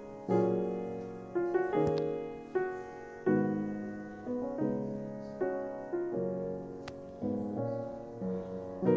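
Background piano music: slow chords struck one after another, each left to fade before the next.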